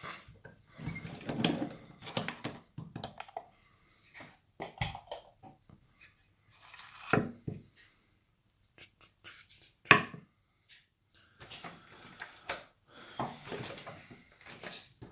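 Hands handling a just-picked lock and metal lock picks: irregular clicks, clinks and rattles of metal, with a sharp knock about ten seconds in.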